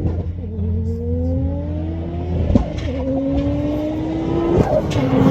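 Race car accelerating hard through the gears. The engine note climbs steadily, drops sharply at an upshift about two and a half seconds in and again about four and a half seconds in, with a sharp crack at each shift, and grows louder as the car comes closer.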